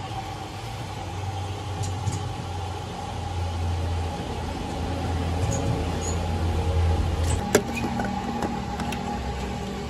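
Fuel dispenser pumping diesel through the nozzle into a Mahindra Thar's tank, a steady low hum that stops about seven seconds in. Just after, a single sharp clack as the nozzle is withdrawn from the filler neck, then a few light clicks at the filler.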